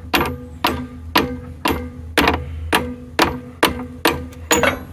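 Steady hammer blows on metal, about two a second, each strike leaving a short metallic ring.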